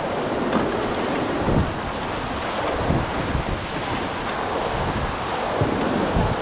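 Fast river water rushing around an inflatable raft and wind buffeting the action camera's microphone, with irregular paddle strokes splashing as the crew paddles forward.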